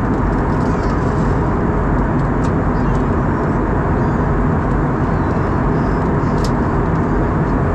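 Airbus A320 cabin noise in flight: the steady roar of the engines and airflow heard from inside the cabin, heaviest in the low range, with a few faint ticks.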